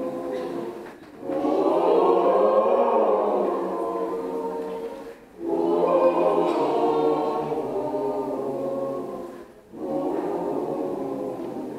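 Mixed choir singing in parts: long held phrases, each broken off by a short pause for breath about a second in, about five seconds in and near the end.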